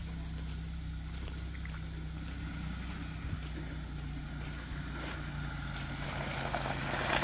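Jeep engine running at low, steady revs as the vehicle crawls forward through mud, growing louder near the end as it comes closer.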